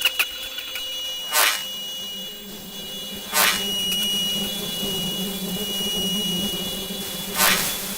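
Electronic sound design: a steady high-pitched tone over a low hum, cut through three times by short, loud whooshing rushes of noise.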